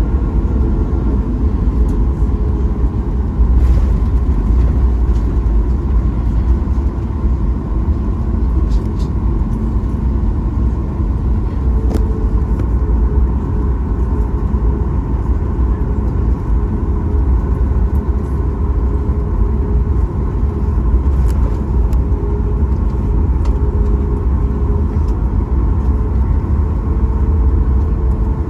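Steady low rumble inside a Boeing 737 MAX 8 cabin: its CFM LEAP-1B engines running and the airframe droning, with a faint steady hum over it and a few light clicks.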